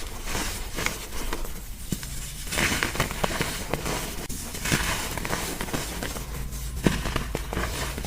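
Blocks of gym chalk being crushed by hand: irregular crunching and crackling with many small snaps and one sharper snap near the end.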